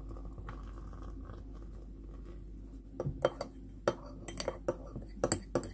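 Dishes and cutlery clinking and clattering, a run of short sharp clicks and clinks from about three seconds in, over a steady low hum.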